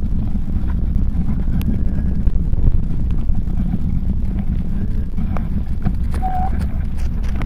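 Wind buffeting the microphone as a bicycle rolls along a wet gravel lane: a steady low rumble with scattered small clicks and ticks from the tyres on grit.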